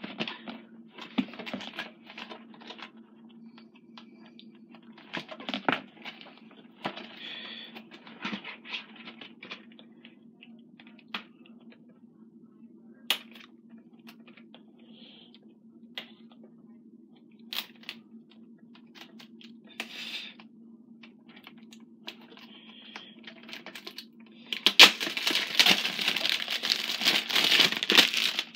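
Plastic shrink-wrap on a sealed VHS tape being picked at and torn off: scattered crinkles and clicks, then a loud stretch of tearing and crinkling for the last few seconds. A low steady hum runs underneath.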